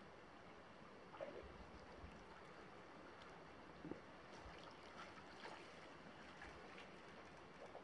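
Very faint river water with a few soft splashes from Eurasian otters swimming and rolling in the water, about a second in, near four seconds and around five seconds.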